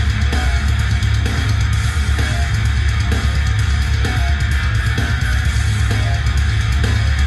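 Heavy rock track with distorted guitars, drums and heavy bass, played loud through an Eltronic 20-36 Pro three-way party speaker in a plywood cabinet.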